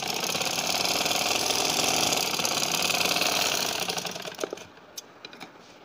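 Singer sewing machine stitching a side seam through cotton fabric at a steady, fast pace. It slows and stops about four seconds in, followed by a few light clicks.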